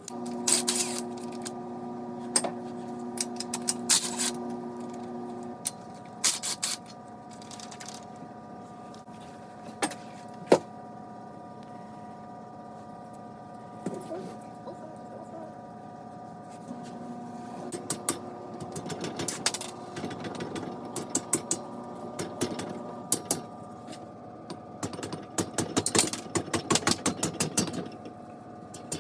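A steady machine hum in a workshop, with scattered sharp metal knocks and, in the second half, bursts of rapid clicking, as of tool work on the engine.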